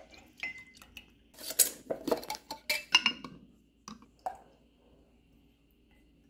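A measuring cup clinking and knocking against glass jars as banana pepper juice is scooped out and poured into a mason jar: a string of short knocks with a noisier splash in between, dying away after about four and a half seconds.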